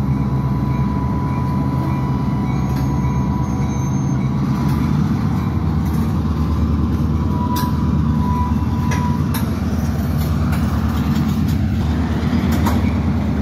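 Two EMD GP38-2 diesel-electric switcher locomotives running, their two-stroke diesel engines giving a steady low rumble as they move a cut of tank cars. A thin steady whine sounds over it for about the first nine seconds, and a few sharp clicks come later.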